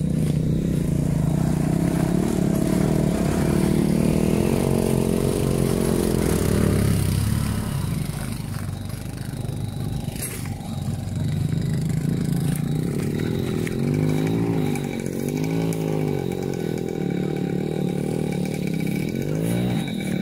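Several motorcycles revving as they climb a dirt trail, the engine pitch rising and falling again and again.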